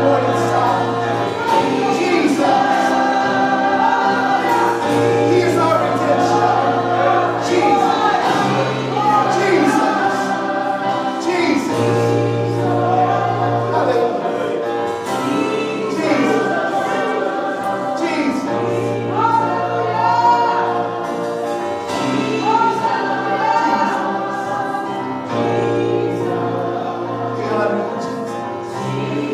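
Church praise band playing live gospel music, several voices singing together over the band, with long held bass notes underneath.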